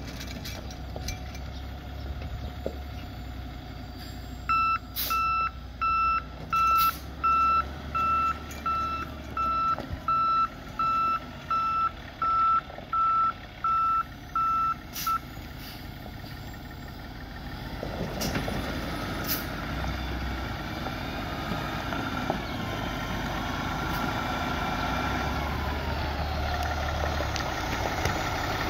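Backup alarm on a 2014 Kenworth T800 day-cab truck tractor beeping evenly, about sixteen beeps at one and a half a second, over its running diesel engine. The beeping stops about halfway through, and the engine then grows louder as the truck moves.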